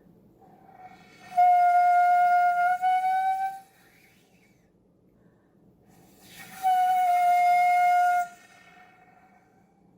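Danso (Korean vertical bamboo notched flute) blown in two long held notes, each about two seconds, with faint breathy air around each as the tone catches and fades. The pitch bends slightly as the blowing angle shifts, in a demonstration that the note sounds only when the instrument is held at about the right angle to the body.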